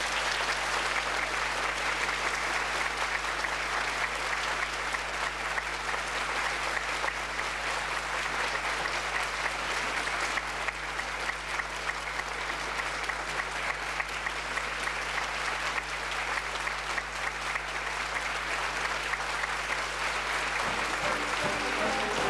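Theatre audience applauding steadily, with music starting up again near the end.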